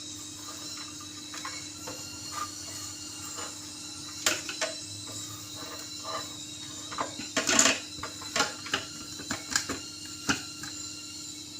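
Scattered light taps and clicks of kitchen handling as roughly chopped parsley is moved into a blender jar, over a faint steady hum; the blender itself is not running.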